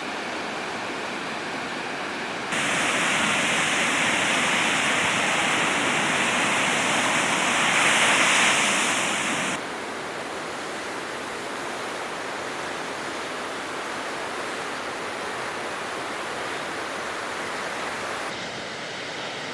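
Steady rush of ocean surf on the coast, with a louder, hissier stretch that cuts in abruptly about two and a half seconds in and cuts out again about nine and a half seconds in.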